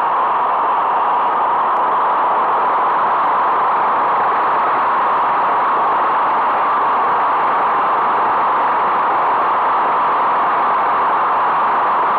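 Air ambulance helicopter running on the ground with its rotor turning: a loud, steady rushing noise that holds the same pitch and level throughout.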